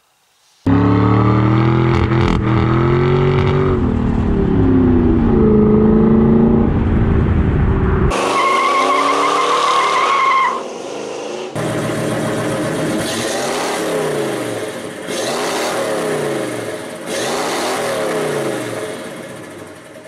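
Car engine revving hard, then a tire squeal lasting a couple of seconds about eight seconds in, followed by the engine revving up and down several times.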